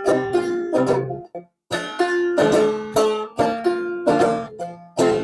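Banjo played clawhammer style, picking out the melody in quick plucked notes that ring and fade. There is a brief stop about a second and a half in before the playing resumes.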